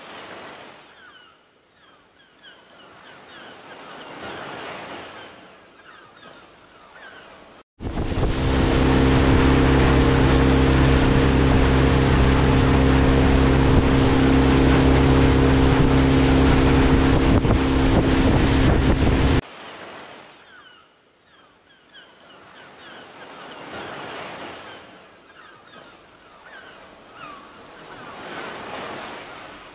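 Muffled underwater bubbling that swells and fades every few seconds cuts abruptly, about eight seconds in, to a motorboat running at speed: a steady engine hum under loud wind and rushing water. After about eleven seconds that cuts off just as abruptly and the underwater bubbling returns.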